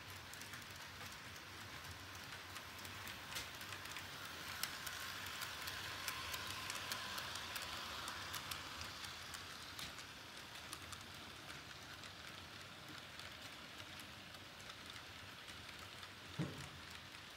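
HO-scale model freight train rolling past on the layout: a faint steady hiss of the small wheels on the track and the locomotive motors, with scattered light clicks, swelling for several seconds in the middle. A brief knock near the end.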